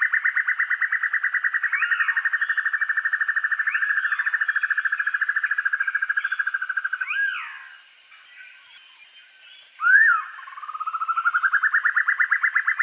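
Banded broadbill song: a long, very fast trill that fades out about seven seconds in, with a few separate slurred notes over it. After a short pause comes one loud sharp note, then a new trill begins, rising as it starts.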